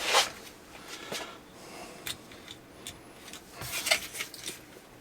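A small screwdriver working tiny screws into a shotgun shell holder: irregular light clicks and scrapes, a louder click at the start and a quick cluster about four seconds in. The screwdriver is too skinny for the screws, which makes the driving awkward.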